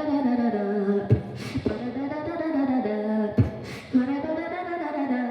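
A woman's voice singing a wordless, sliding melody, mixed with beatbox-style mouth clicks and hissing 'ts' sounds between phrases.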